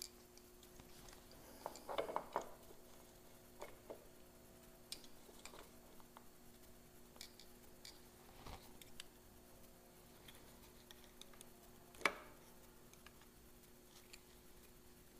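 Faint, scattered light metal clicks and clinks as a new Ducati 748 dry-clutch hub is slid onto the clutch by hand, with one sharper click about twelve seconds in. A faint steady hum runs underneath.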